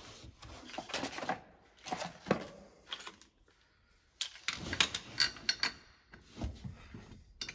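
Bursts of light metallic clicks and clinks from wheel bolts being handled and fitted by hand to a steel wheel on a car's front hub, with a short pause in the middle.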